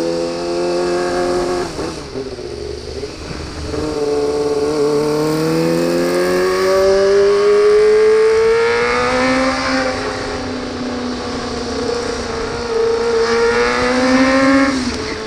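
Kawasaki ZX25R's 250 cc inline-four through an Austin Racing GP-RR exhaust, accelerating hard: the engine note climbs steadily with the revs and drops back at gear changes, about two seconds in and again at the end.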